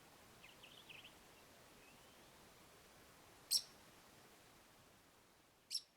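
Faint bird chirps and twitters in the first second, then two short, sharp high-pitched bird calls about two seconds apart, the loudest sounds, over faint outdoor hiss.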